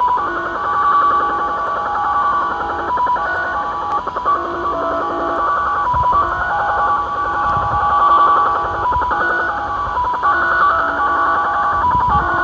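The 'Japanese slot machine' (XSL) shortwave multi-tone data signal heard in upper sideband on a Tecsun PL-600 portable receiver: several steady tones stepping quickly between pitches in a rapid warbling, beeping pattern, over a hiss of radio static.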